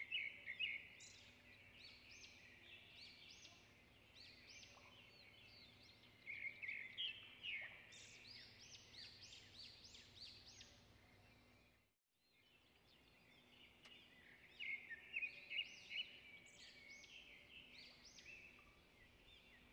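Birdsong: many small birds chirping and trilling in quick high notes. It fades out completely for a moment about twelve seconds in, then resumes.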